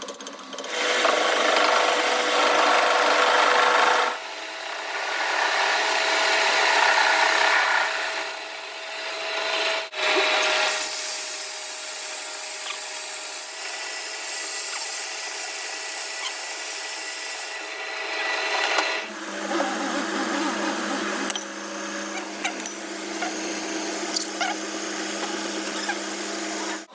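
Workshop power tools machining metal in a run of short edited clips, the sound changing abruptly several times.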